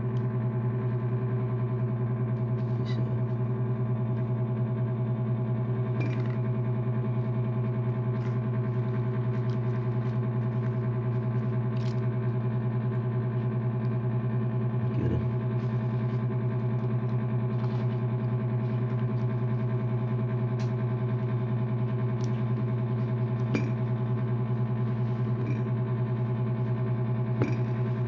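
A steady low electrical buzz with a stack of overtones, unchanging throughout, with light clicks from small phone parts being handled every few seconds, a slightly heavier tap about fifteen seconds in.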